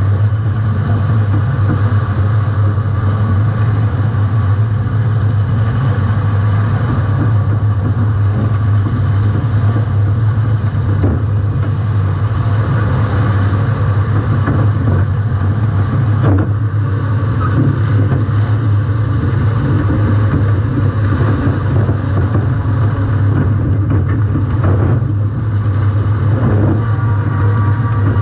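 A welded compact demolition-derby car's engine running hard with a loud, steady drone, heard from inside the car. A few sharp bangs cut through it, about 11, 16 and 25 seconds in.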